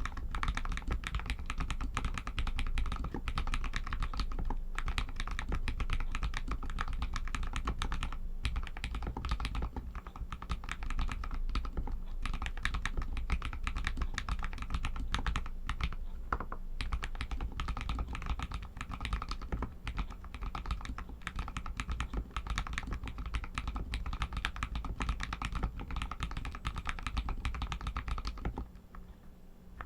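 Fast, continuous typing on a Royal Kludge RK61 mechanical keyboard with Outemu Red linear switches, a dense stream of key clicks that pauses briefly near the end.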